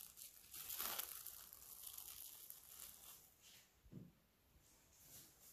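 Plastic cling film crinkling and crackling as it is pulled and stretched over a glass bowl, fading out after about three seconds, followed by a soft knock.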